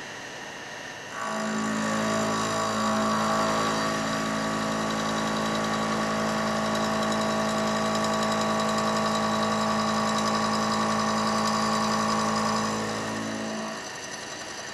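Charpy specimen milling machine running a cut cycle, its five-tip insert cutter milling samples held in a slowly rotating fixture. The machine starts up about a second in with a steady pitched running sound and winds down shortly before the end.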